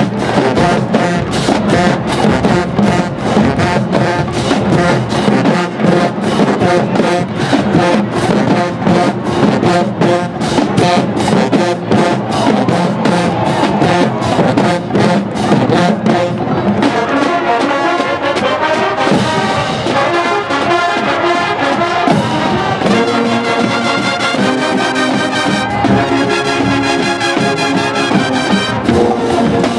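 College marching band playing: a brass section over a fast, driving drum beat, shifting about halfway through to held brass chords with lighter percussion.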